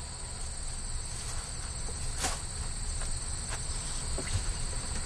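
Crickets chirring in a steady, continuous high trill, over a low steady rumble. One sharp click about two seconds in.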